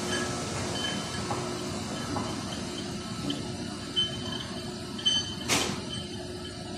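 Steady hum of injection-moulding machinery on a factory floor, with short high metallic squeaks and clinks around four and five seconds in and one short sharp hiss-like burst about five and a half seconds in.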